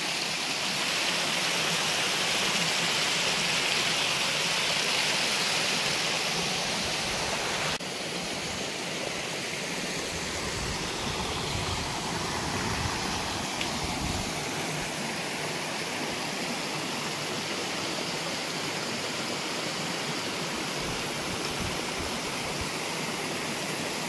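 Creek water rushing over rocks at the lip of a waterfall: a steady hiss of running water. It drops a little in level at a cut about eight seconds in.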